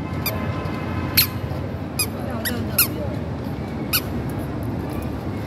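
A toddler's squeaky shoes chirping with her steps: about six short, sharp squeaks at an uneven walking pace, over a steady low background hum.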